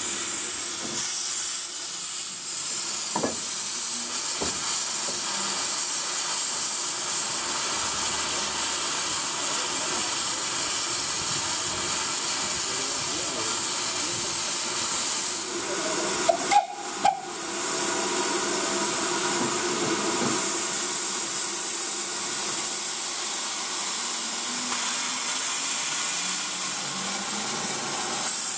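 Steady, loud hiss of steam escaping from a standing LSWR 0298 class Beattie well tank steam locomotive, briefly broken a little past halfway.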